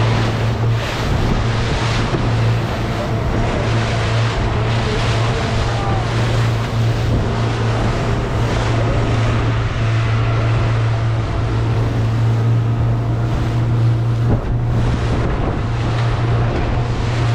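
Boat engine running steadily under way, a constant low drone, with wind buffeting the microphone and water rushing past the hull.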